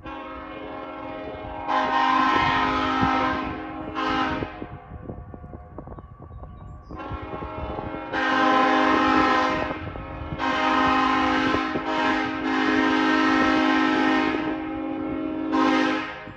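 Multi-chime locomotive air horn, run off a truck's air system, sounding a chord in a series of long and short blasts, about seven in all, with a softer tone continuing between the blasts.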